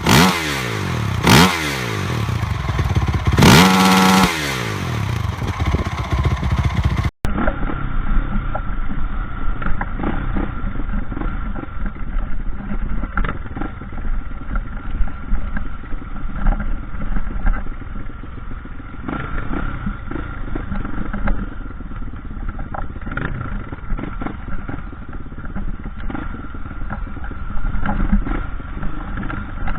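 Trail motorcycle engine revving up and down sharply a few times. After a cut about seven seconds in, a bike riding over rough ground, the engine running steadily with frequent clatter and knocks, the sound duller.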